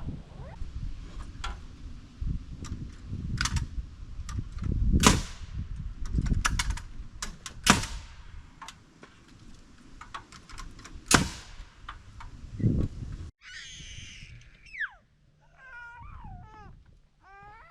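Separate sharp impacts at uneven intervals, nails being driven into framing lumber. About thirteen seconds in the sound cuts off abruptly, and a cat meows several times.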